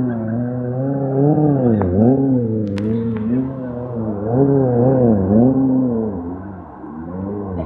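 Motorcycle engine revving up and down again and again as the rider works the throttle to hold a wheelie. Its pitch rises and falls every second or so.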